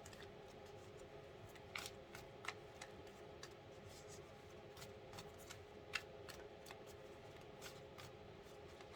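Tarot cards being handled and laid down: a few faint, scattered clicks and light snaps, the plainest about six seconds in. Under them runs a faint steady room hum.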